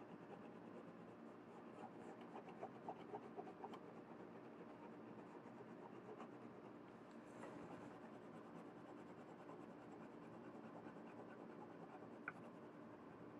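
Green colored pencil shading on paper: faint scratching of the pencil lead rubbed in strokes across the sheet.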